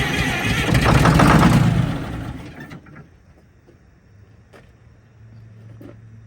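Detroit Diesel 6-71 two-stroke inline-six bus engine running loudly. It swells about a second in, then dies away by about three seconds in. The engine has weak cylinders and low compression. Afterwards there is a faint low hum and a couple of sharp clicks.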